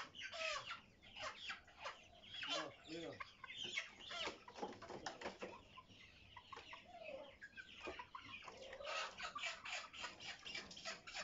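A flock of Tiger chickens clucking, with short rising-and-falling calls repeating many times.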